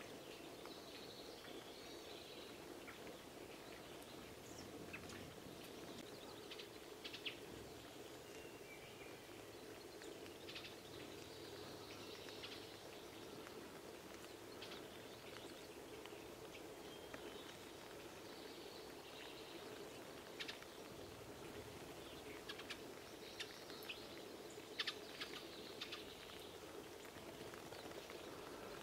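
Small songbirds chirping and calling on and off over a steady background of light rain, with scattered short ticks and taps.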